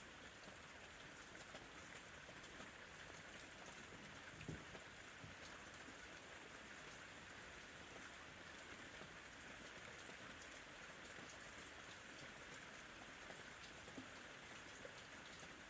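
Soft, steady rain falling, an even patter with one slightly louder tap about four and a half seconds in.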